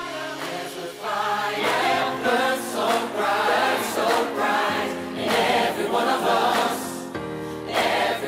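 Background music with a choir singing over steady held chords.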